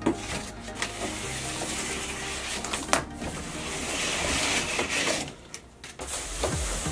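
Foam packing blocks rubbing and scraping against cardboard as they are pulled out of a shipping box, with a few sharp knocks, over soft background music.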